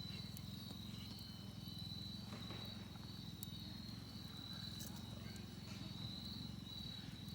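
Insects chirping in a continuous high trill, over a low steady hum.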